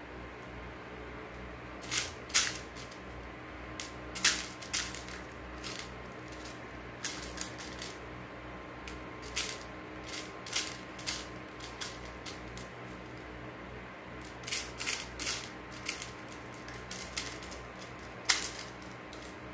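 Small beads clicking and rattling in a clear plastic compartment organizer box as fingers pick through them: scattered sharp clicks at irregular intervals, the loudest about two seconds in, about four seconds in, and near the end.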